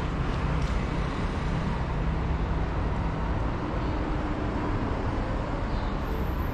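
Steady rumbling background noise, strongest in the low end, with a couple of faint clicks early on and a thin high tone near the end.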